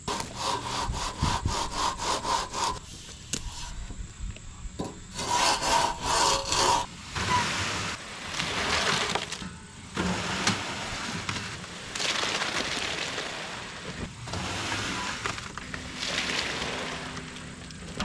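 Rough scraping and rubbing strokes of a hand tool working wet concrete, coming in bursts with short pauses between them.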